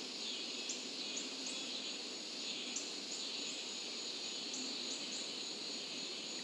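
Chorus of cicadas keeping up a steady high buzz, with short, very high chirps of birds scattered through it.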